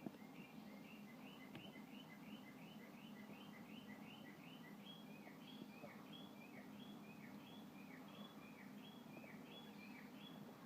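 Faint bird song: a long run of repeated chirps, quick at first, then slower notes that slide downward. Under it runs a low steady hum.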